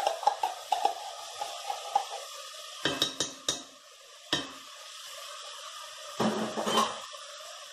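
Browned ground meat sizzling and crackling in a heavy pot. A metal spoon clinks sharply a few times about three to four and a half seconds in as tomato paste is spooned in.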